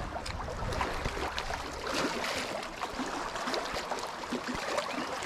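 Small waves lapping and splashing against a rocky lakeshore, a steady watery wash with scattered light clicks.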